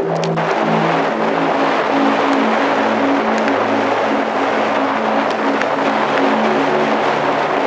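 Wind rushing over the microphone, with a flight variometer's repeating beeps changing pitch: higher, quicker beeps at first, then lower, longer tones from about five seconds in.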